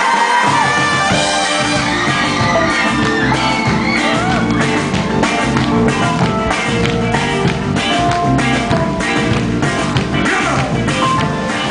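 Live band music: batucada-style samba drumming with steady repeated drum strokes under other instruments, a voice singing over it in the first half.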